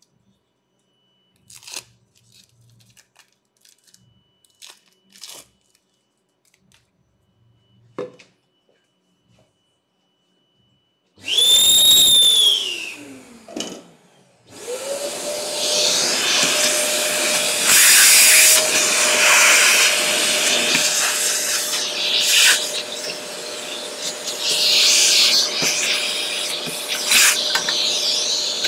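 A few light knocks and clicks of wooden pieces handled on the CNC table, then a vacuum cleaner switched on briefly, its whine rising and falling away as it stops. It is switched on again about three seconds later and runs steadily, its rushing noise rising and falling as it sucks up sawdust from the milling.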